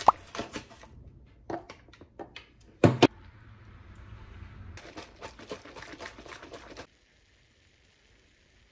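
A plastic sachet of protein powder is torn open and handled with crinkling, clicks and a couple of sharp knocks. Milk is then poured from a carton into a paper cup with a soft splashing hiss, followed by a quick run of rattling clicks as the drink is mixed, which leaves it frothy. The sound stops abruptly about two seconds before the end.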